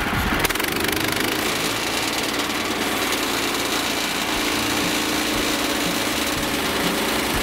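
Woodland Mills HM130MAX sawmill's engine catching about half a second in on its first start, then running steadily at idle.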